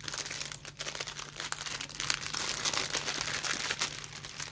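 Plastic packaging crinkling and rustling in irregular bursts as it is handled and opened, likely the bags of drills from a diamond painting kit. A faint steady low hum runs underneath.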